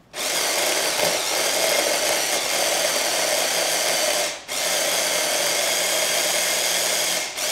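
Electric mini chopper (a hand-blender motor on a chopper bowl) running in pulses, a steady whir that stops briefly about four and a half seconds in and again near the end, as it chops frozen butter into the flour.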